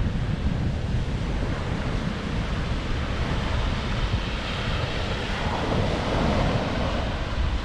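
Ocean waves washing on the shore, swelling about halfway through, with heavy wind rumbling on the microphone.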